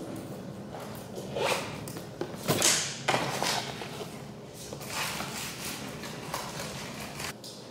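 Rustling and handling noises close to the microphone, with a few irregular knocks and scuffs, the loudest cluster about two and a half to three seconds in, over a steady low hum.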